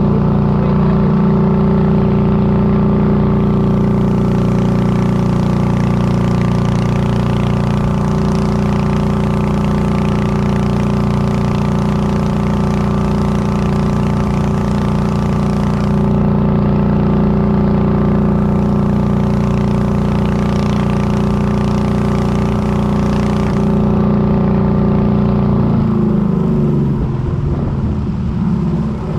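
Boat engine running steadily at cruising speed, then dropping in pitch about four seconds from the end as it is throttled back.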